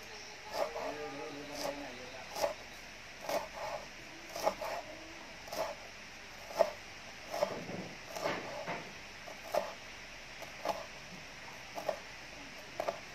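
Large kitchen knife chopping lime leaves on a wooden cutting board: sharp knocks of the blade on the board, about one a second, in an even rhythm.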